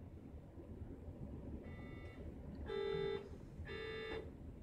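Electronic alarm of a hospital patient monitor beeping: a faint tone, then two louder tones about a second apart, over a steady low hum.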